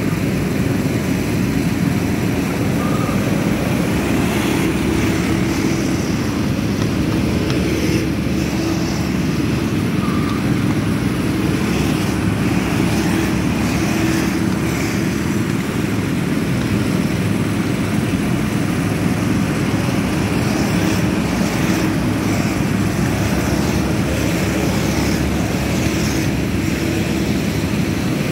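Engines of several go-karts lapping a circuit, a steady continuous drone.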